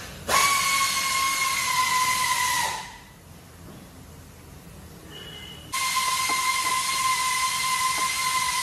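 A steady hiss with a high whistling tone starts abruptly, dips slightly in pitch and stops about three seconds in. It starts again suddenly near six seconds and runs on, with a few light clicks over it.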